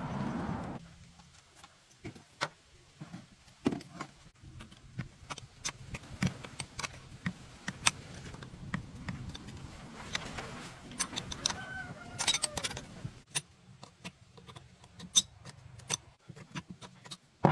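Irregular light metallic clicks and clinks of tools and small metal parts being handled, with a louder noise in the first second and a brief squeak about twelve seconds in.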